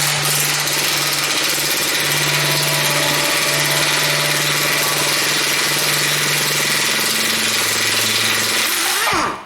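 A loud machine running steadily for about nine seconds, starting and cutting off abruptly.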